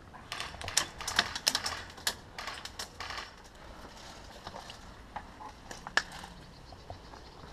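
Airsoft fire: a quick, irregular run of sharp clicks and snaps for about three seconds, then a few scattered ones, with one loud snap about six seconds in.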